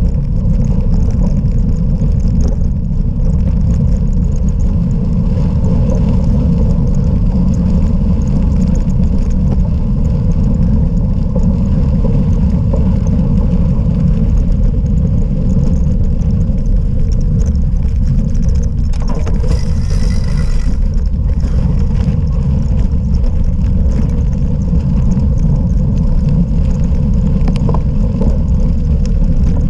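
Cyclocross bike ridden over rough off-road ground: a loud, steady rumble of wind and ground vibration on a bike-mounted camera, with a brief hiss about twenty seconds in.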